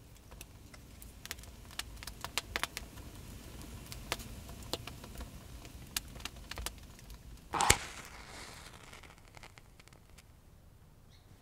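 Wood fire crackling with scattered sharp pops, then, about two-thirds of the way through, a match is struck and flares with a short hiss that fades away.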